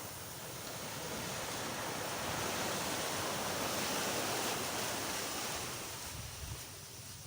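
Sea waves washing up on a sandy beach: a hiss that swells over a couple of seconds and then fades away.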